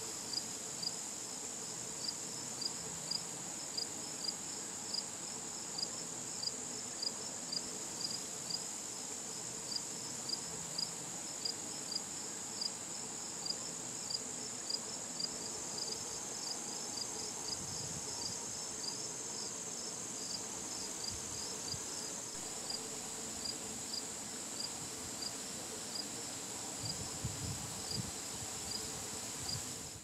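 Crickets chirping: a steady high-pitched trill with a regular chirp about twice a second over it. The trill fades for several seconds about two-thirds of the way in while the chirping goes on.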